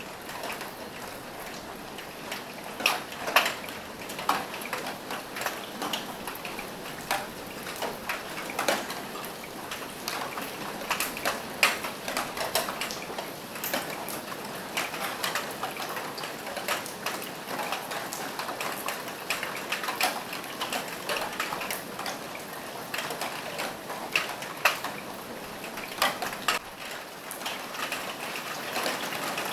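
Steady rain falling on a roof, an even hiss broken by irregular louder drops tapping.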